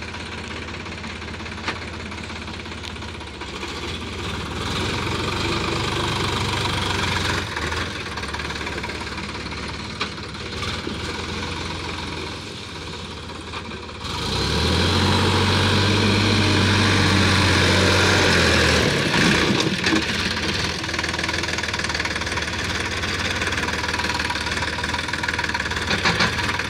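Sonalika DI 50 RX tractor's diesel engine running steadily under load while its rear rotavator tills weedy ground. About halfway through, the engine jumps louder for about five seconds, then eases back to a steady run.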